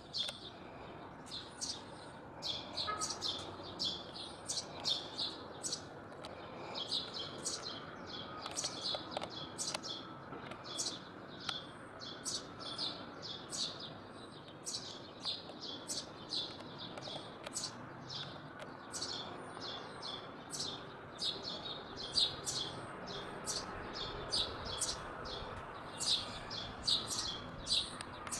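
Small birds chirping over and over, two or three short high chirps a second without a break.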